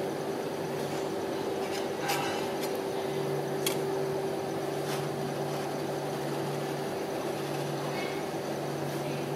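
Steady hum of a rolled-ice-cream machine's refrigerated steel cold plate, with a few sharp clicks as a metal spatula taps and scrapes on the frozen plate, about two, three and a half and five seconds in.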